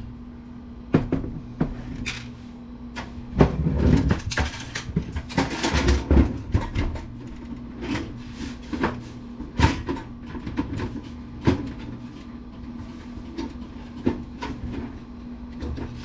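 Irregular clicks, knocks and rattles of a desktop PC's sheet-metal case and drives being handled and worked loose during teardown, with a busier stretch of clattering a few seconds in.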